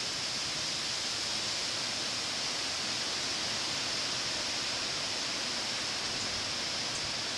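Steady outdoor background hiss with a constant high-pitched band and no distinct events.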